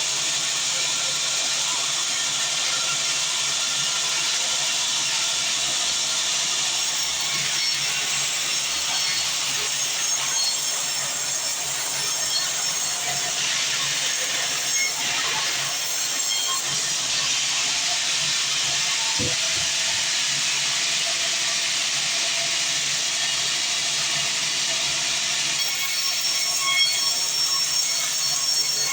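Band sawmill running and cutting through mahogany: a steady, unbroken hissing noise with faint steady tones over it.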